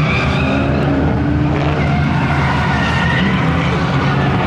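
Drift car engine held at steady high revs while its tyres skid across the pavement.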